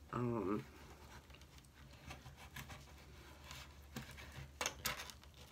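Knife blade prying and scraping at a pearl oyster's shell to open it: faint scratching with scattered sharp clicks, most of them about two and four to five seconds in.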